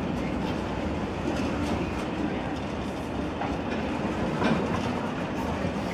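Container freight wagons rolling past, their wheels clacking over the rail joints, with one louder clack about four and a half seconds in.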